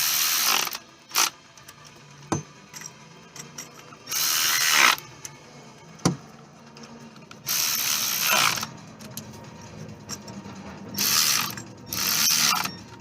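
Ratchet wrench clicking in five short bursts, tightening down the bolts of coil-pack tie-downs, with a few single sharp clicks between the bursts.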